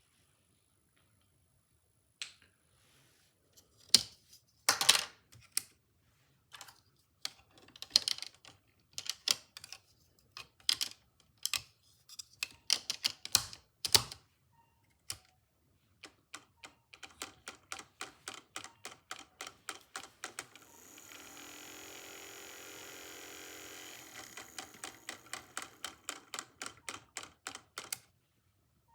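Snap Circuits electronic kit parts clicking: irregular sharp clicks, then a regular clicking about three times a second. A steady high-pitched electronic whine sounds for a few seconds during the regular clicking.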